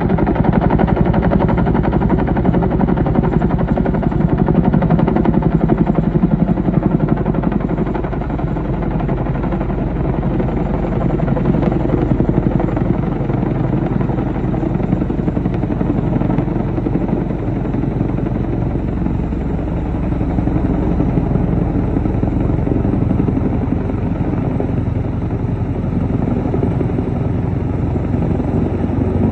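Military helicopter running close by, its rotor blades beating in a rapid, steady chop, a little louder in the first several seconds.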